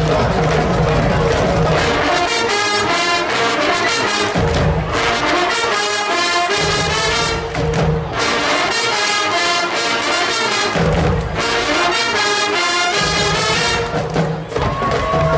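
Marching band playing loudly: brass phrases alternating with stretches of heavy low drums.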